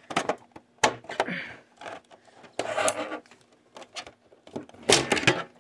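Packaging being handled as something is taken out of a tin of hockey card packs: a few short bursts of crinkling, rustling and light knocks, the loudest near the end.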